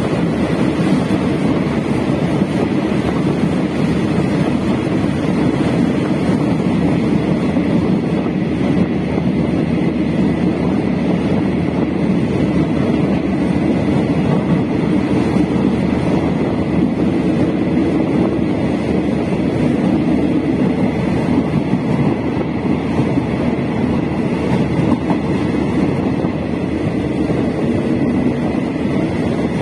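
Passenger train running at speed, heard from inside the carriage: a steady rumble of wheels and wind through the open window, with a faint steady high whine.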